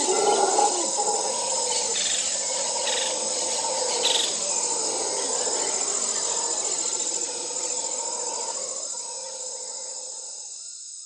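A chorus of forest insects trilling steadily at a high pitch, with a lower steady tone beneath, fading out over the last few seconds.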